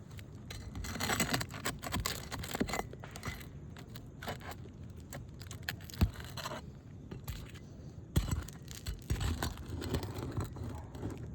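A hand pry tool scraping and prying under asphalt roof shingles while hunting for nails to pull, in irregular rasping strokes, with a sharp knock about 6 seconds in and another about 8 seconds in.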